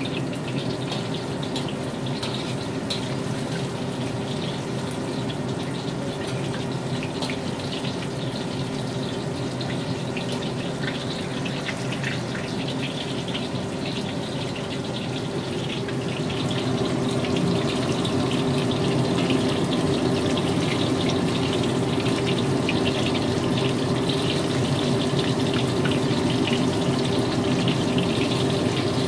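Starch-coated chicken pieces deep-frying in a wok of hot oil: a steady sizzle with fine crackles, louder from about halfway through.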